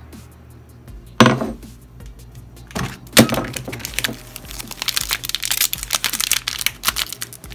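Two sharp knocks, about a second and about three seconds in, as a ceramic plate and a cracker packet are set down on a wooden table. From about four seconds in, quick crinkling as the plastic wrapper of a Ritz crackers sleeve is pulled open.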